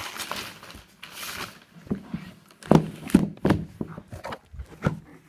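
Handling sounds from a box of foil-wrapped chocolates. A short rustle about a second in, then a run of sharp knocks and taps over the next two seconds.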